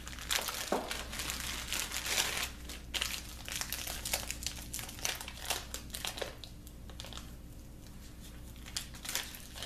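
A clear plastic packaging bag crinkles and rustles as hands unwrap a drill press arbor from it. The crinkling is busiest through the first six seconds or so and thins out to occasional crackles after that.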